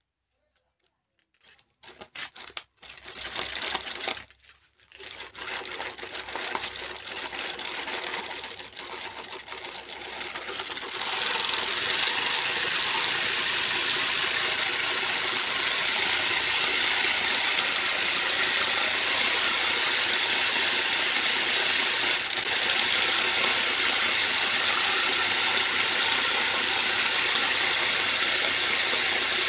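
Small DC motor driving a homemade two-cylinder model engine mechanism, running with a steady mechanical whirring clatter. It starts in fits over the first few seconds and settles into a steady run about eleven seconds in.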